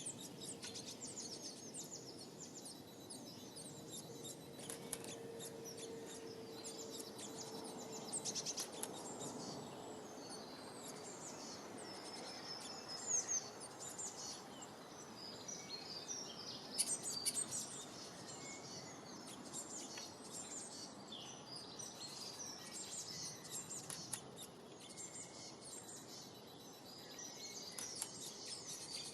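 Many small birds chirping and twittering at once, a continuous chatter of short high calls with a few louder bursts.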